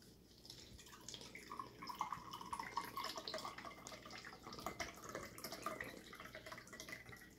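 Coconut water pouring from a carton into a bowl of fruit juice, faint and uneven, starting about a second in.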